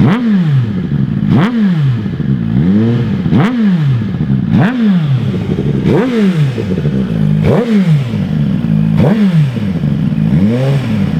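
Suzuki GSX-R1000R inline-four with a Yoshimura aftermarket exhaust, revved repeatedly while stationary. It rises sharply and drops back toward idle roughly every second or so, about nine blips in a row.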